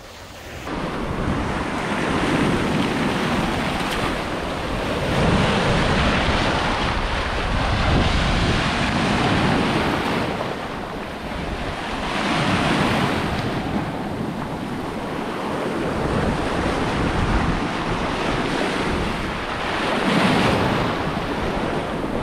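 Sea waves washing in over rocks and breaking into foam at the shoreline, swelling and easing in surges every few seconds, with wind buffeting the microphone.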